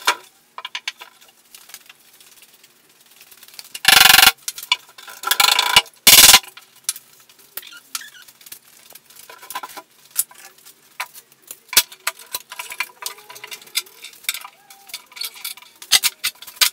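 Workshop handling noise as a glued MDF rail is worked into a cabinet carcass and a long bar clamp is set across it. Scattered light knocks and clicks, with three loud bursts of noise about four to six seconds in, each under half a second.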